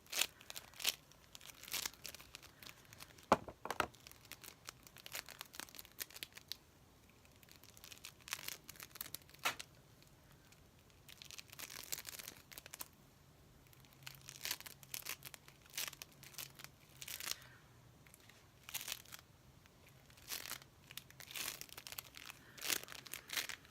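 Sticky bead modelling compound being squeezed and pulled apart in the hands: irregular bursts of crackling, tearing sounds with short pauses, and one sharper snap about three seconds in.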